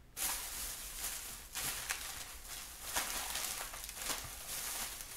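Thin plastic shopping bag rustling and crinkling as hands rummage through it and the packets inside, with irregular crackles and a few louder crunches.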